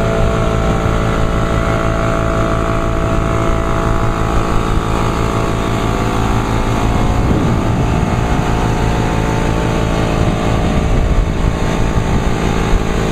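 A motor running steadily at a constant speed, a continuous hum with a low pulsing beneath it.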